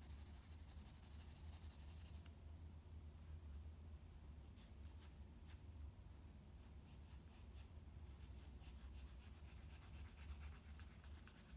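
Pencil sketching on paper, faint: steady scratchy shading for the first two seconds, then bursts of quick short strokes from about four seconds on.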